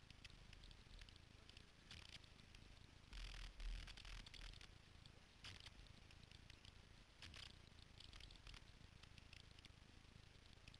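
Near silence: faint rustling and crackling of branches and brush as riders pull at a fallen tree across the trail, with a louder rustle and low rumble about three seconds in.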